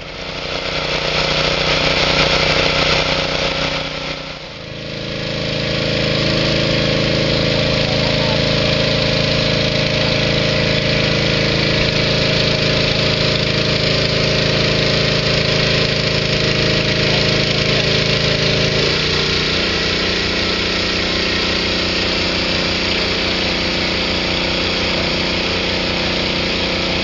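Backhoe loader's diesel engine running steadily, its note changing about four seconds in and shifting again about two-thirds of the way through.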